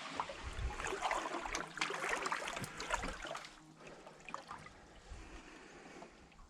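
Water splashing and trickling in small irregular splashes, busier for the first few seconds and then dying down.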